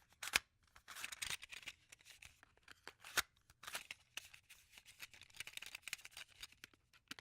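A MiniDisc and its plastic case being handled: a run of small sharp plastic clicks and snaps with scratchy rubbing in between, the two loudest clicks just after the start and about three seconds in.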